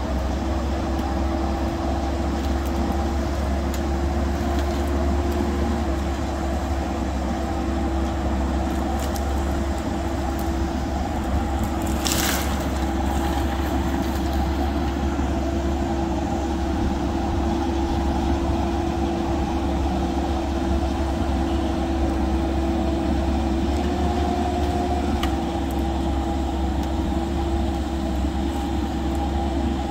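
Diesel engine and hydraulics of a Merlo Roto 50.35 rotating telehandler running steadily, with a low hum and a steady whine that shifts slightly in pitch twice as the boom works. About 12 seconds in comes a brief rushing noise lasting about half a second.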